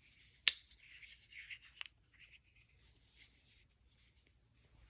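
Lockback folding knife being handled: one sharp metallic click about half a second in, a softer click near two seconds, and light rubbing between them.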